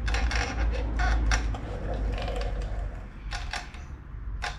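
A run of short mechanical clicks and knocks with a low rumble underneath, as a wheel and tyre on a spring-less front suspension are turned by hand toward steering lock.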